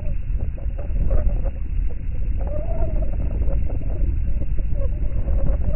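Strong wind buffeting the microphone with a heavy low rumble, over the wash of wind-driven waves, with a faint wavering tone drifting up and down through it.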